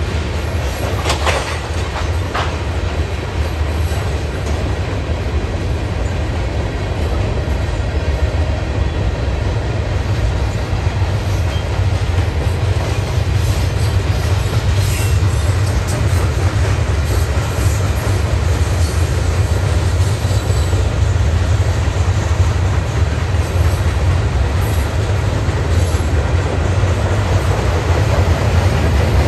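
Freight cars of a Union Pacific manifest train rolling past: tank cars, a covered hopper and flatcars loaded with steel coils, a loud, steady rumble of steel wheels on the rails.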